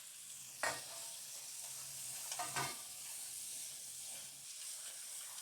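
Chopped vegetables (carrot, potato, onion, tomato and mint leaves) frying in oil in a pan with a steady, faint sizzle. The pan is being stirred, with a couple of short scrapes of the spoon, one about half a second in and another around two and a half seconds in.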